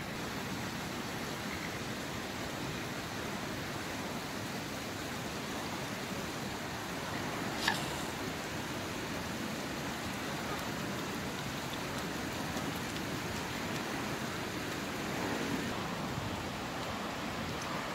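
Steady, even rushing noise of wind outdoors by open water, with a single sharp click about eight seconds in.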